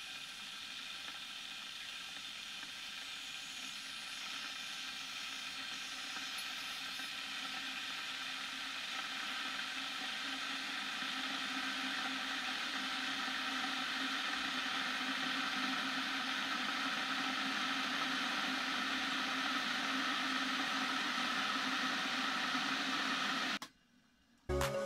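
Stainless steel electric kettle heating water: a steady hiss that grows gradually louder as the water nears the boil, then cuts off abruptly near the end.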